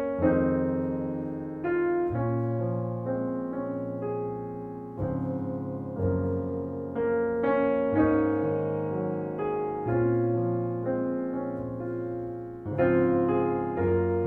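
Solo piano music: slow, gentle chords and notes struck about once a second, each fading before the next.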